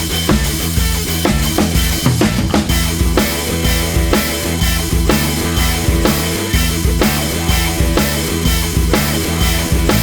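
Background music: a rock track with a steady drum-kit beat and bass.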